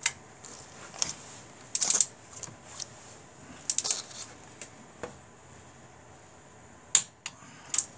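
Click-type torque wrench with a ratchet head tightening cylinder head bolts in sequence to torque: sharp metallic clicks, single or in short runs, every second or two, with the loudest single click about seven seconds in.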